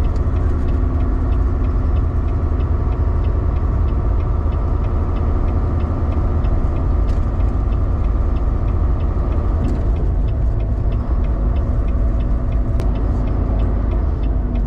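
Volvo semi truck running down the highway, heard from inside the cab: a steady low engine and road rumble with a higher hum that drops away about ten seconds in, and a light regular ticking about three times a second.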